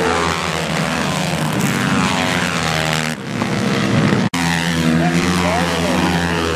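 Several racing motorcycles running hard around a dirt track, their engine notes overlapping and shifting in pitch as the bikes go by. The sound breaks off suddenly for an instant a little over four seconds in.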